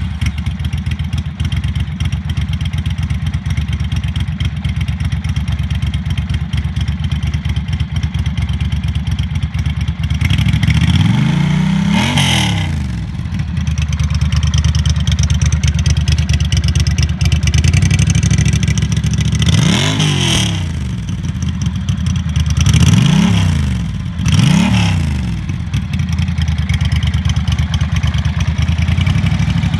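Ducati Monster 600's air-cooled 583 cc L-twin, breathing through a baffled Danmoto XG-1 aftermarket exhaust, idling steadily, then revved in short throttle blips: one about twelve seconds in, three more in the second half, and another rise in revs at the very end.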